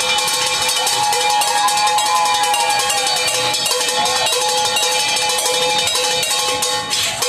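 Fast metallic percussion from pots, pans and buckets struck in a rapid, dense rhythm, with a steady ringing tone underneath.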